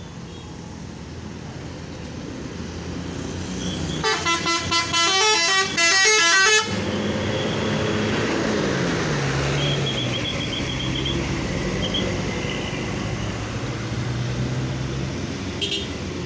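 Basuri V3 telolet musical bus horn playing a fast run of stepped notes for about two and a half seconds, starting about four seconds in and cutting off abruptly, over bus engine and traffic noise. Afterwards a low engine note falls in pitch.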